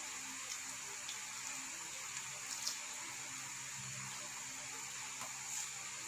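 A steady hiss with a few faint, scattered clicks and smacks of people chewing and eating with their hands.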